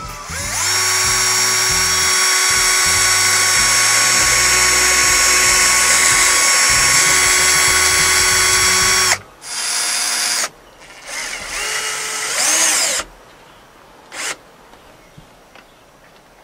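Compact Bosch cordless drill running steadily for about eight seconds as it drills a pilot hole through the end of a boat's vinyl rub rail insert. It then stops and runs twice more in short spurts, the second rising and falling in pitch, with a brief final burst near the end.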